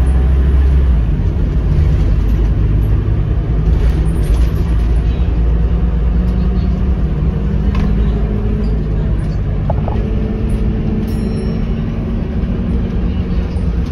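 The diesel engine and drivetrain of a Scania K230UB bus, heard from inside the passenger saloon as it drives. The engine note slowly rises over a steady road rumble, with a few faint rattles.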